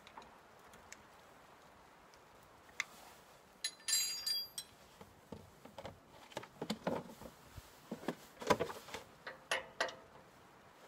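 Sharp metal clicks and clinks of hand work on a diesel fuel system being bled of air, with a short scraping rattle about four seconds in and irregular clicks after it.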